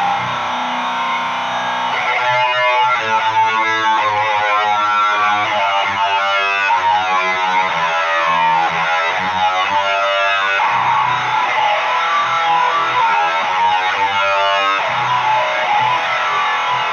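Heavily distorted electric guitar in B standard tuning, played through a Boss HM-2 boosted by a Boss SD-1 into a Jet City JCA22H tube amp: the buzzing HM-2 "chainsaw" tone. A ringing chord gives way to a fast picked riff, then a held chord about two thirds of the way in, a short burst of picking, and a chord left ringing.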